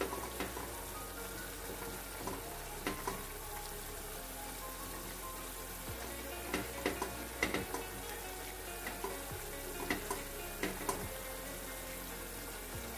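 Silicone spatula stirring thick spinach-and-chicken curry in a pot over a steady sizzle, with scrapes and taps against the pot, thickest in the second half.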